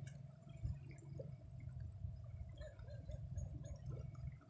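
River water flowing and lapping, with a low steady rumble underneath and small scattered splashes.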